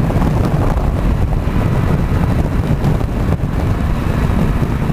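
Heavy wind buffeting on the microphone of a moving motorcycle, with engine and road noise underneath, from a Honda CBR500R on the move.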